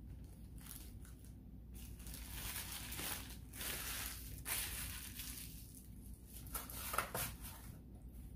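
A crinkly fast-food paper wrapper being handled and crumpled, in a run of rustling crackles that starts about two seconds in and stops shortly before the end, sharpest about halfway through and near the end.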